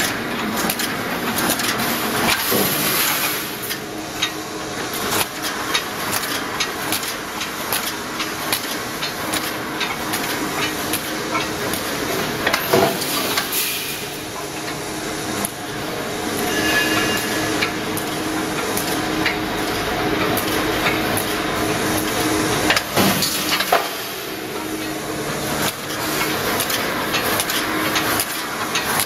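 Automatic welded wire mesh machine running, with repeated clanks and knocks from the welding head and wire feed and a constant hiss as it welds wire into mesh.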